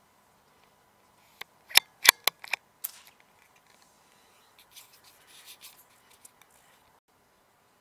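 About six sharp clicks in quick succession over a second and a half, then quieter scattered rustling as the scoped rifle is handled and swung.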